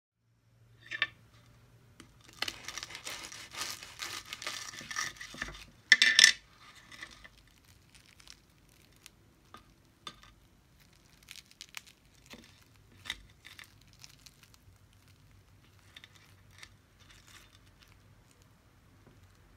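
Crisp, breadcrumb-coated fried pastry cigars crackling and crunching as they are broken open by hand. A dense crackle lasts about three seconds, then comes one sharp, loud crack about six seconds in, followed by scattered small crackles.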